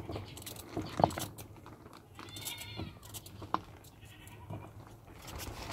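Kitchen knife slicing a carrot into rounds held in the hand, giving a string of short clicks as the blade cuts through and slices drop into a plastic bowl. A high animal cry sounds in the background about midway and again at the end.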